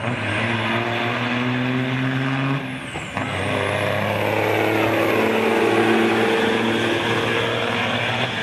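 Heavy diesel semi-truck engines pulling under full throttle with loaded trailers, a steady deep drone. The sound briefly drops out about three seconds in, then comes back and grows a little louder.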